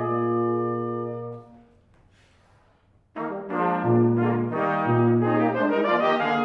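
Brass quintet of two trumpets, French horn, trombone and tuba playing. A held chord dies away about a second and a half in, and after a rest of just over a second the ensemble comes back in together with quick moving notes over sustained low notes.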